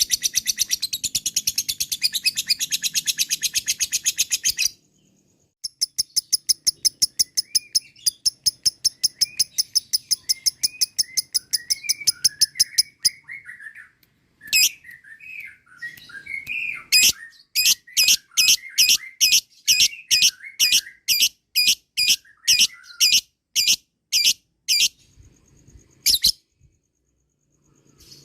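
Lovebird ngekek: a long, fast rattling chatter of sharp high notes repeated evenly, in three long runs broken by short pauses, with softer, lower chirps underneath in the middle. It is the excited, agitated call that keepers play to provoke other lovebirds into answering.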